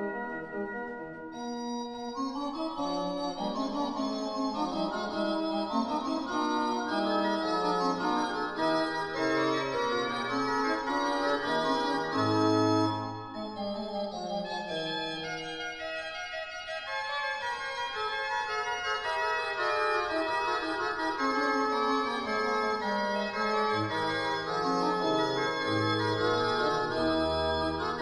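Slow organ music as a soundtrack: held chords changing every second or two over low bass notes, with a short break in the phrase about halfway through.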